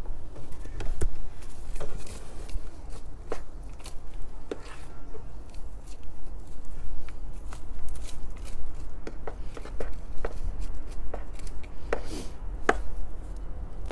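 Small hand shovel digging into the soil of a container, irregular scrapes and knocks as the blade goes into the earth, over a steady low rumble.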